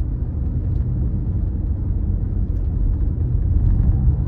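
Steady low rumble of a car driving along a road, heard from inside the cabin: tyre and engine noise.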